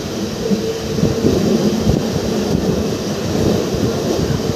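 Passenger train running along the track, heard from inside the coach: a steady rumble of wheels on rails with a faint steady hum.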